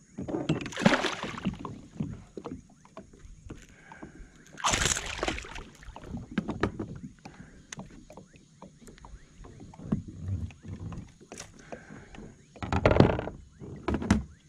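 Small peacock bass thrashing and splashing at the surface beside a plastic kayak as it is brought in, in bursts about a second in, about five seconds in and near the end, with small knocks and clicks between.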